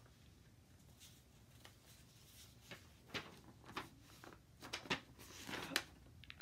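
Sheets of drawing paper being handled and shuffled by hand: quiet at first, then from about halfway a run of short, faint paper crackles and rustles.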